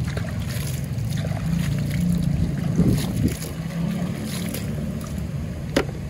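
Water sloshing and splashing in a plastic toy dump truck's bed as it is rinsed out, over a steady low rumble of wind on the microphone, with a sharp click near the end.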